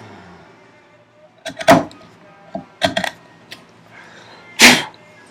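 A few sharp, irregular knocks of hand woodworking tools against the wooden workpiece during dado work. The loudest knock comes near the end.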